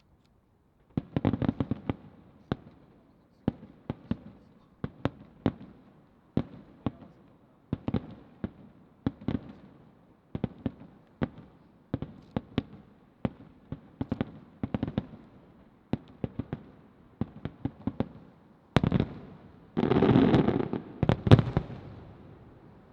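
Aerial firework shells bursting in quick succession: sharp bangs roughly every half second to second, building near the end to a dense volley of bangs with a sustained rumble.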